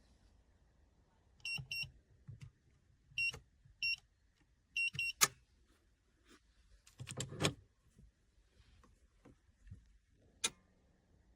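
Electronic keypad of an Amazon Basics steel security safe giving six short, high beeps as a code is keyed in. Then comes a sharp click, a clatter from the safe's lock mechanism and door about seven seconds in, and another sharp click near the end.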